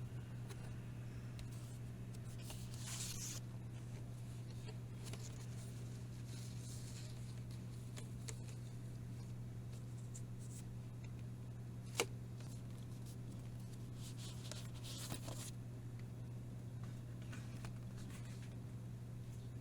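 Hands handling record packaging: scattered brief rustles and one sharp click about twelve seconds in, over a steady low hum.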